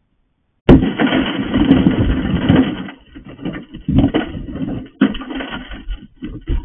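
A car's side window being broken in: a sudden sharp crack, then about two seconds of loud crunching and grinding glass, followed by further separate knocks and crunches as the broken glass is knocked out of the frame.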